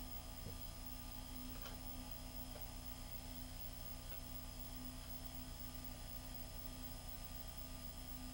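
Steady electrical mains hum with a few thin high whine tones over hiss, on the soundtrack of an old reel-to-reel video tape recording. A few faint ticks come and go.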